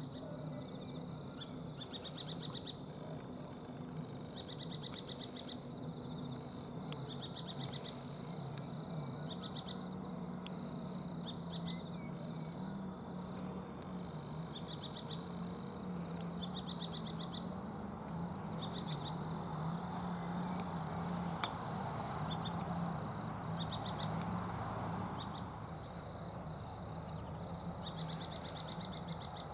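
White-plumed honeyeaters calling: short, rapid trills repeated every second or two, over a steady faint high tone and a low hum.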